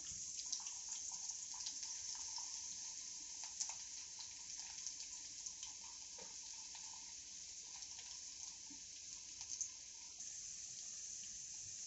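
Chopped garlic sizzling faintly in a kadhai of hot oil tempered with mustard seeds, cumin and curry leaves, a steady hiss with scattered small crackles.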